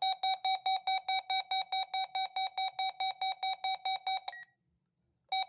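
Radio Shack 12-254 handheld weather radio sounding its beacon test tone in test mode: a rapid, even series of shrill beeps, about five a second. It stops about four seconds in and starts again near the end.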